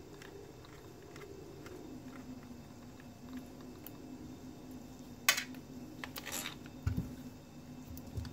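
Small clicks and taps of a hex driver and the plastic parts of an RC crawler being handled during disassembly, with a sharp click about five seconds in and a soft thump about two seconds later. A steady low hum runs underneath.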